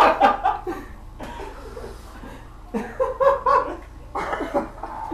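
Men chuckling and laughing in short bursts, with a lull of about two seconds near the start.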